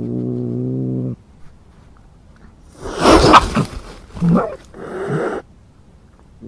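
Cat's threat sounds: a low, steady growl for about a second, then harsh hissing and spitting snarls with a short yowl. This is a cat's defensive warning toward a fox.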